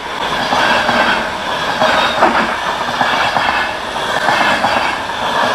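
Passenger train coaches running past, a steady rush of steel wheels on the rails with a few sharp clicks from the wheels over the track.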